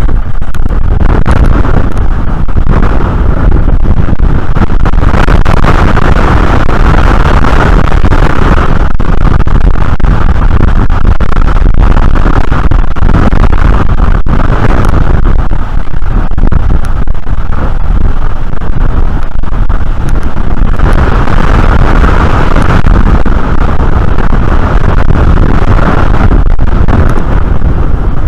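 Strong wind buffeting an outdoor nest camera's microphone: a loud, constant rushing noise with heavy low rumble.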